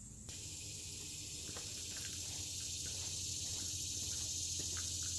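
Steady outdoor background: a high-pitched hiss over a low hum, with a few faint steps near the end.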